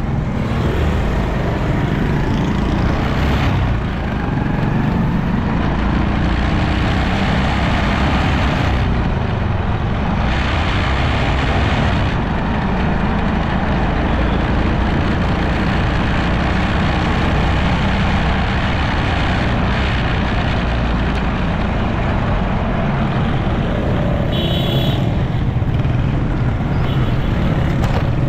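Motorcycle riding through city traffic: steady engine and road noise with wind on the microphone, other vehicles around it, and a brief high-pitched sound near the end.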